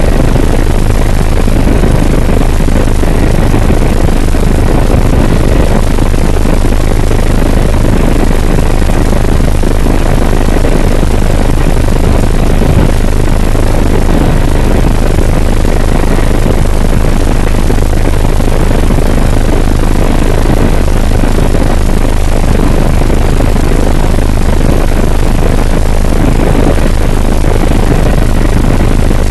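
Helicopter in flight: loud, steady rotor and engine noise with a constant low drone.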